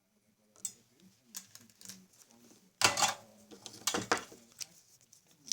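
Several sharp clicks and clatters of small hard tools and parts being handled on a work surface during soldering, the loudest two about three and four seconds in.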